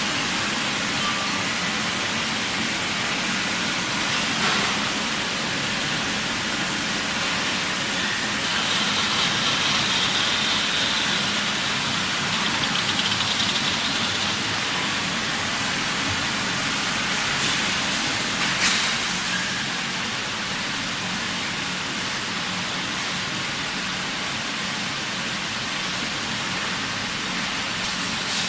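Steady industrial machine noise from a pipe welding line: a constant hiss over a low hum, with a brighter hissing stretch a third of the way in and a few sharp clicks.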